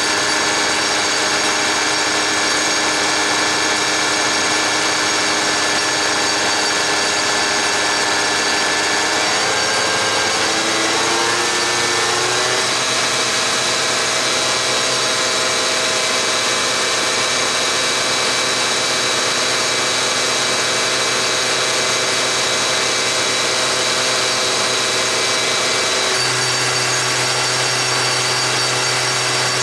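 Bacharach diesel injection pump test stand running steadily, spinning a Cummins VE rotary injection pump that feeds test injectors. About ten seconds in, its pitch rises over a few seconds as the speed changes and then holds, and the tone shifts again near the end.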